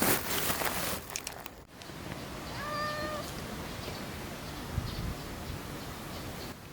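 A cat meowing once, a short call held on one pitch about three seconds in, after a burst of rustling noise at the start.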